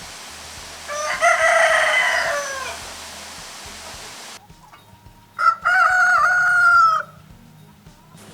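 Two rooster crows, one about a second in and another about five seconds in, each lasting around a second and a half. The first sounds over a steady hiss and falls in pitch at its end; the second is cleaner and held level before stopping abruptly.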